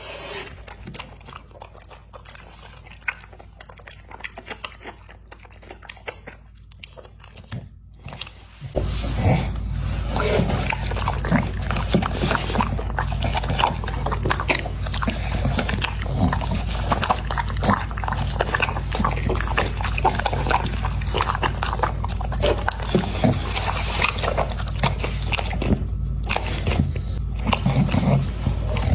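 American Pocket Bully dog chewing and crunching food, a dense run of irregular bites and smacks. About nine seconds in the whole sound steps up louder over a steady low hum.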